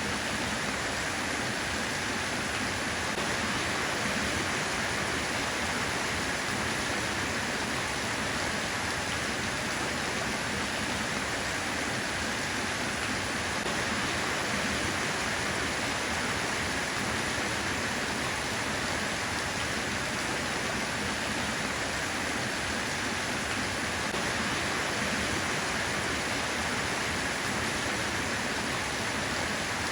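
Steady rainfall, an even hiss of rain with no distinct drops or thunder.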